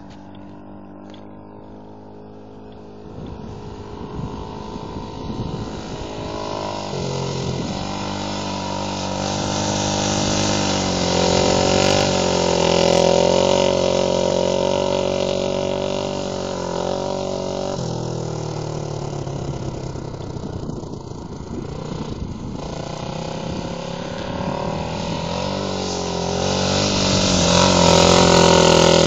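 Honda 450 dirt bike's single-cylinder four-stroke engine running under way, its revs rising and falling with changes in pitch at about 7 and 18 seconds. It grows louder as the bike comes closer and is loudest near the end.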